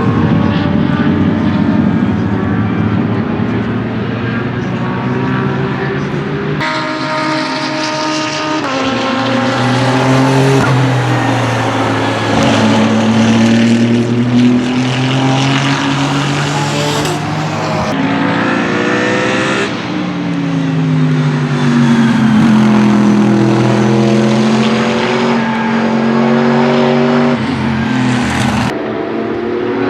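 GT race cars running at speed on a circuit, engines revving up and down through gear changes as they pass. The sound jumps abruptly twice, about a quarter and about two thirds of the way through, as one passing car gives way to another.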